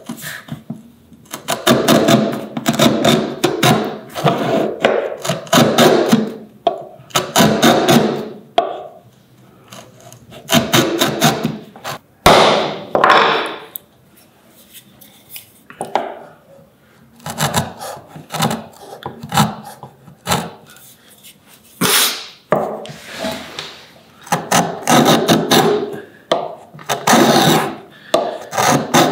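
Homemade router plane with a cobalt-steel blade pushed through the bottom of a dado in repeated scraping strokes, each about a second long with short pauses between, shaving the wood against the grain.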